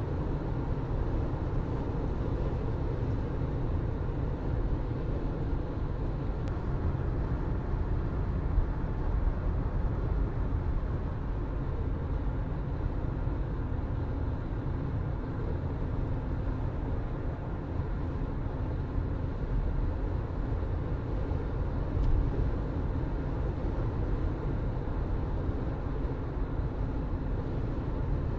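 A car driving: a steady, deep hum of engine and road noise, with a couple of brief bumps partway through.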